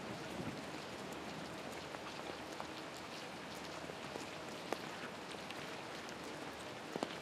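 Steady rain, an even hiss with scattered faint ticks of drops.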